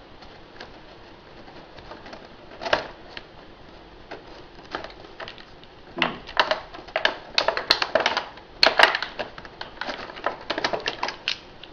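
Plastic toy train track pieces and their packaging being handled: one knock a little under 3 s in, then from about 6 s a rapid run of clicks, clacks and crinkles as the straight track pieces are pulled out.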